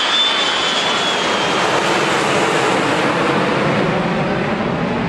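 Jet engines of two Boeing 737s flying overhead in close formation: a steady roar with a high whine that fades within the first second or two, the sound growing deeper as the jets pass.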